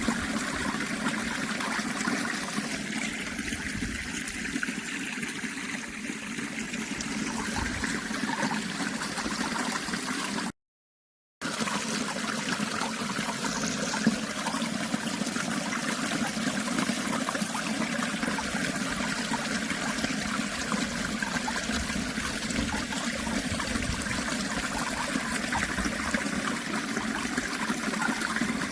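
Natural running water, a steady trickling, gurgling flow. It cuts out completely for about a second roughly a third of the way through, then resumes unchanged.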